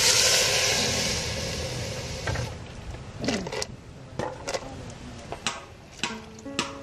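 Broth poured into a cast-iron cooking pot: a loud splashing pour that fades out over the first two and a half seconds. Scattered clinks and knocks of dishware against the pot follow.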